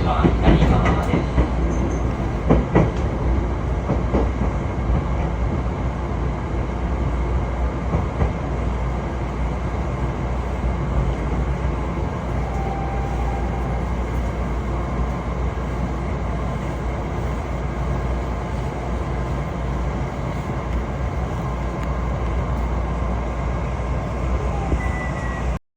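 Train running on the rails, heard from inside the carriage: a steady low rumble of wheels and running gear, with a few sharp clacks in the first few seconds. It cuts off abruptly near the end.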